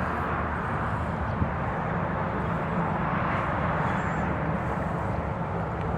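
Solar garden lights giving off a steady hissing hum, with a faint steady tone underneath.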